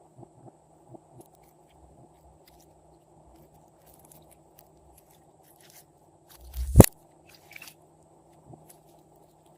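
Glossy slime being worked by hand, making small sticky clicks and crackles, with one loud pop about seven seconds in.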